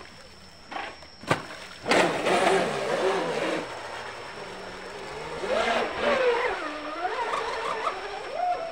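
Vector SR80 RC speedboat's brushless electric motor and propeller whining under throttle as the boat runs at speed. The whine cuts in sharply about two seconds in, then its pitch rises and falls with the throttle.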